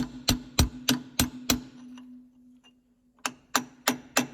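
Hammer blows on a chisel driving against a seized bolt in a steel knife bed, sharp metal-on-metal strikes at about three a second with the steel ringing under them. The strikes pause for about a second and a half midway, then resume.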